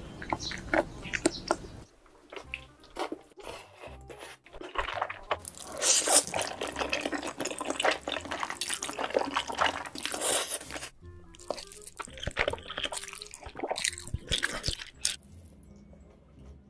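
Close-miked eating sounds from several short clips cut together: wet chewing, lip smacks and clicks, and slurping of noodles, with sudden breaks at the cuts.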